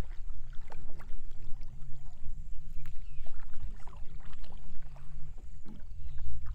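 Canoe moving on a river: water lapping and splashing against the hull and paddle, with a low rumble underneath.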